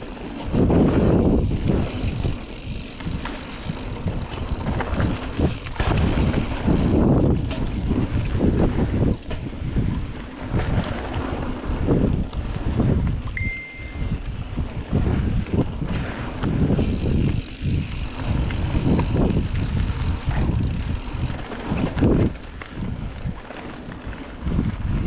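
Wind buffeting the GoPro's microphone as a mountain bike descends a dirt flow trail at speed, with tyre and frame noise surging unevenly over bumps and turns. A brief high squeal about halfway through.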